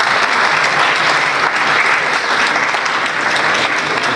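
Applause: many people clapping steadily together.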